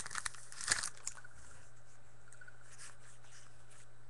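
A trading-card pack wrapper rustling and crinkling briefly as it is handled, a few short crackles within the first second. After that, only a faint steady low hum.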